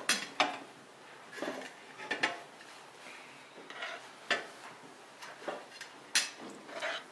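Metal spoons clinking and scraping against a cooking pot in irregular, sharp knocks as minced-meat filling is scooped out and pressed into green peppers.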